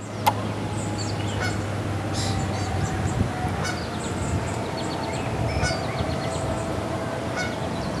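Outdoor ambience of birds calling and chirping over a steady background hiss, with a sharp click about a quarter second in.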